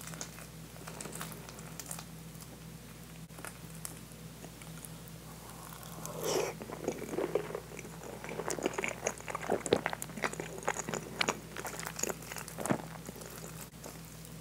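Close-miked eating sounds: faint fork clicks for the first few seconds, then from about six seconds in, wet chewing and mouth sounds of very soft, egg-soaked French toast with whipped cream, with many sharp little clicks.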